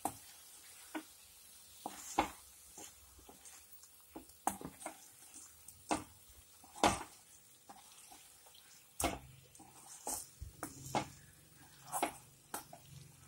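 Wooden spatula stirring and scraping thick masala with boiled eggs around a frying pan: irregular scrapes and knocks against the pan, over a faint sizzle.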